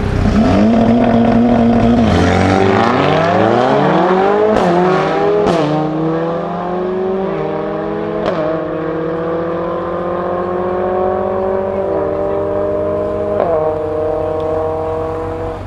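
Mercedes-AMG A45 S's turbocharged 2.0-litre four-cylinder, with a decat Akrapovic exhaust, and a second car launching side by side in a drag race. The engines are held at steady revs on the line for about two seconds, then rise hard through the gears. There are sharp exhaust cracks at the upshifts, about four and a half, five and a half and eight seconds in, and the later shifts come as the cars pull away.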